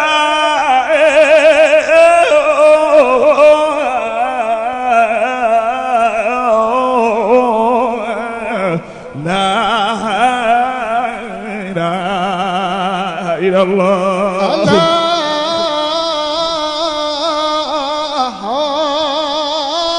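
A man's solo voice singing a melismatic Arabic Sufi dhikr chant through a microphone and loudspeakers, long held notes with a wide wavering vibrato. About fifteen seconds in, the sound turns brighter as another man's voice takes up the chant.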